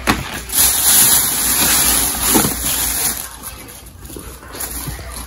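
Loud rustling and crinkling of plastic packaging as baby clothes are handled and pulled out, strongest for about the first three seconds, then fading.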